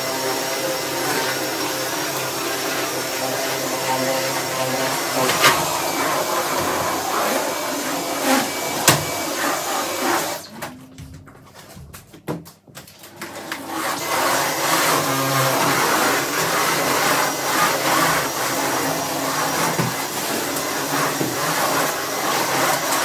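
Vacuum cleaner running steadily. It cuts out for about three seconds around the middle, then starts up again.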